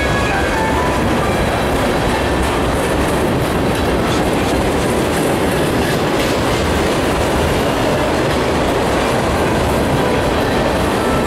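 Freight train tank cars rolling past close by: a steady noise of steel wheels on the rails, with wheels clicking over the rail joints.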